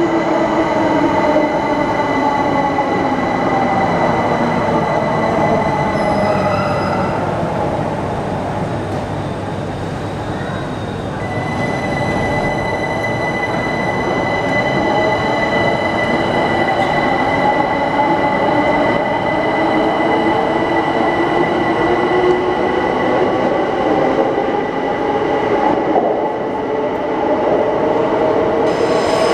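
Bombardier Electrostar electric multiple units running through an underground station platform, with a rumble and an electric motor whine whose pitch slowly falls, rises and falls again as the trains change speed. A steady high whine sounds over them.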